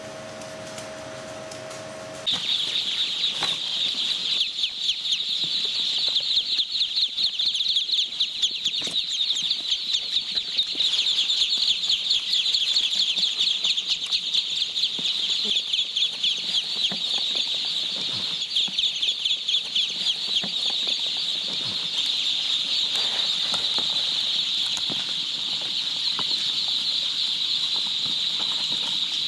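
A large flock of ducklings peeping together in a dense, continuous high-pitched chorus, which starts suddenly about two seconds in after a low steady hum.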